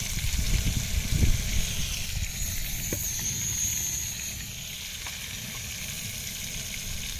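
Butter with garlic and thyme sizzling in a pan as it browns into beurre noisette, a steady frying hiss. A few low knocks and some rumbling in the first two seconds.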